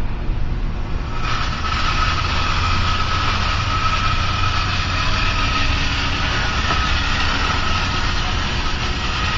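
Antique motor-driven toy of Spirit of St. Louis aeroplanes circling a tower, whirring steadily over a low rumble. The whir grows louder about a second in and holds a steady tone.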